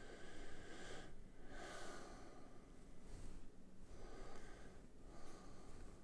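A man breathing close to the microphone, about five soft breaths in and out.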